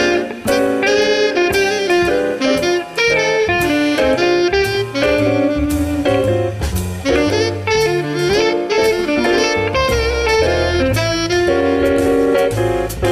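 Saxophone playing a jazz melody over a band backing with drum kit and bass.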